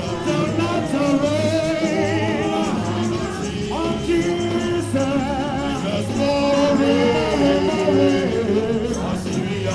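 Live gospel praise music: group singing over a band with a steady beat.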